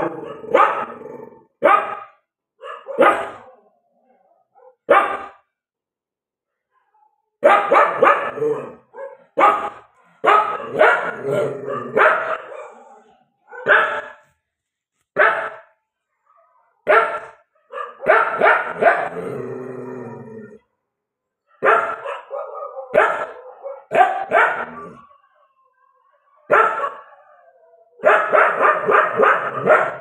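A dog barking in bouts of several quick barks with short pauses between them, mixed with a few longer, wavering howling calls.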